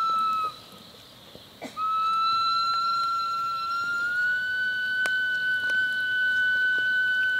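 A wind instrument holding long, steady high notes. The note stops about half a second in, and a new one starts a little over a second later. It steps slightly higher about four seconds in and is then held.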